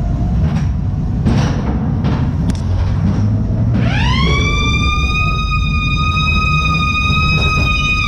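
A siren wail rises in pitch about four seconds in and then holds on one steady note, over the low rumble of the ghost train car running along its track. A few short knocks sound before the siren starts.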